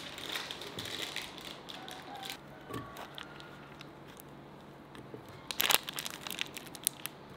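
Paper-and-foil wrapper of a block of plombir ice cream crinkling as it is torn open and peeled back, then a few sharp knocks and clunks near the end as chunks of the ice cream drop into a glass blender jar.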